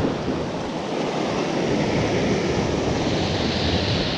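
Sea surf breaking and washing over shoreline rocks, a steady rushing of water that grows a little hissier near the end.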